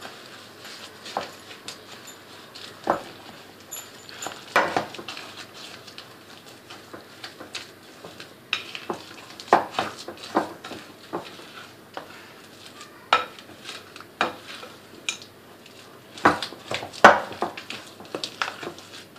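A utensil stirring in a bowl, knocking and scraping against it in irregular clicks as vanilla ice cream is mixed with crushed cookies and nuts. The loudest knocks come near the end.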